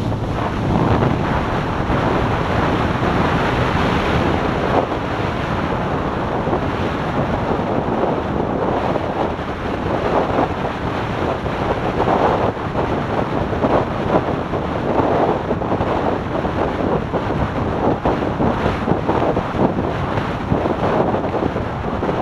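Wind buffeting the microphone of a motorcycle-mounted camera at highway speed, a loud unsteady rush that gusts up and down.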